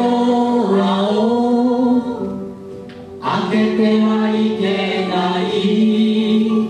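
Musical-theatre song: voices singing in two long phrases of held notes, with a short break about two seconds in.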